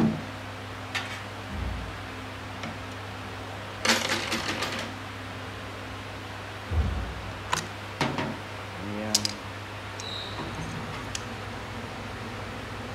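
Metal automatic-transmission parts, clutch drums, steel plates and gears, being handled: scattered clinks and clanks with a low thud, busiest about four seconds in and again around eight to nine seconds. A steady low hum runs underneath.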